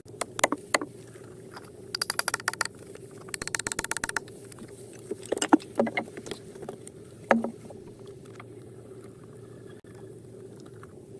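A series of sharp knocks with two short bursts of rapid rattling clicks, over a steady low hum.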